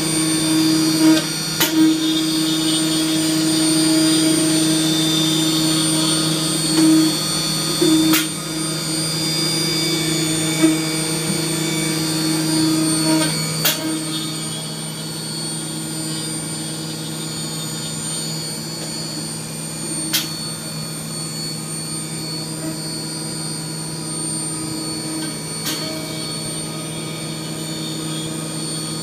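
Haas Super Mini Mill CNC running a simultaneous four-axis milling program: steady spindle whine and machine hum, with a sharp click about every six seconds. The sound drops a little about halfway through.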